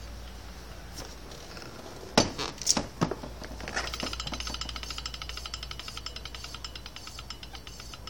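Front wheel making a fast, even ticking noise as it turns, fading slowly toward the end, after a few sharp knocks about two seconds in. The ticking is the abnormal noise from the front wheel.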